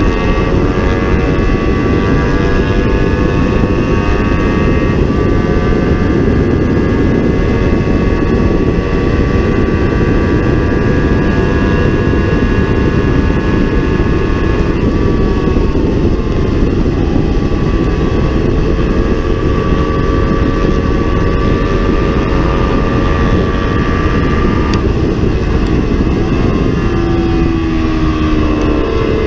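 Kawasaki Ninja 300's parallel-twin engine running at high revs, heard from an onboard camera under heavy wind buffeting on the microphone. The engine note is steady, shifts slightly a couple of times, and falls in pitch near the end.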